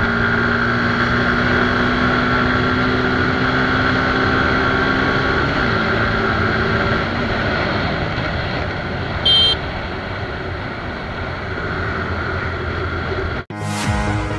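Suzuki Gixxer SF 155's single-cylinder engine running steadily while cruising at about 90 km/h, with wind and road noise. A brief high beep sounds about nine seconds in. Near the end the sound cuts off abruptly and intro music begins.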